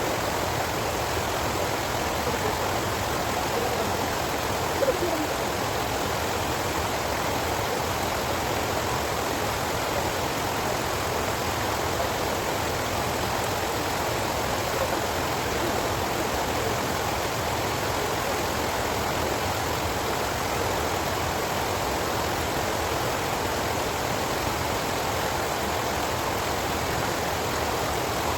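Flowing water rushing steadily, like a stream running over rocks.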